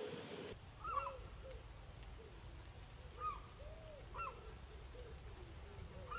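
Birds calling: short arching calls repeated at irregular intervals, a higher call about four times and lower calls more often in between.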